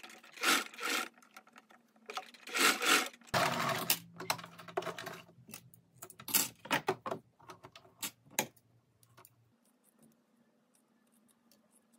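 Household electric sewing machine stitching a linen cuff seam, its motor giving a steady low hum for several seconds about three seconds in. Linen rustles and clicks sound as the fabric is handled and drawn out from under the presser foot.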